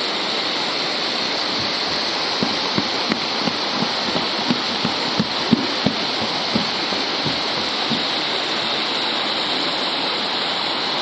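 Mountain stream rushing steadily over rocks. A run of soft, low knocks comes about two a second through the middle of the sound.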